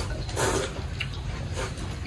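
Sounds of eating from bowls: a short slurp of broth about half a second in and a couple of small spoon-and-bowl clicks, over a low steady rumble.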